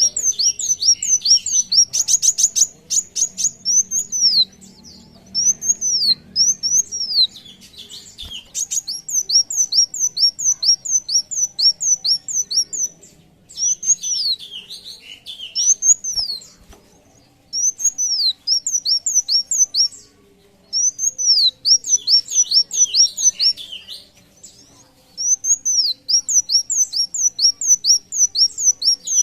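A caged sunbird singing in repeated phrases of high, arched chirps, about three notes a second, with short pauses between phrases. A fast rattling trill comes about two seconds in.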